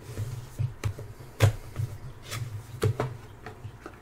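Hands opening a cardboard product box: a series of light taps, clicks and scrapes of cardboard as the lid is lifted, the sharpest click about a second and a half in.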